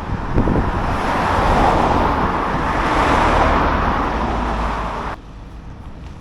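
Road vehicle passing close by, a rush of tyre and engine noise that swells to a peak about three seconds in, then cuts off suddenly after about five seconds.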